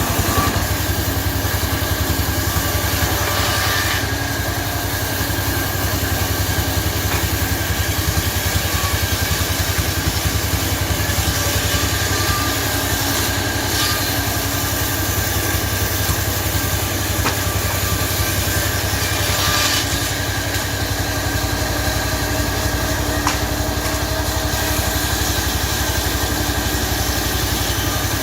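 Two-stroke chainsaw engine running at a steady, even speed, with no revving up or bogging down.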